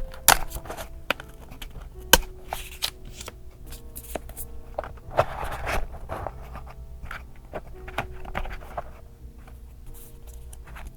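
Paper being handled in a journal: rustling and crinkling with sharp taps and clicks, the loudest rustle about five seconds in, over soft background music with held notes.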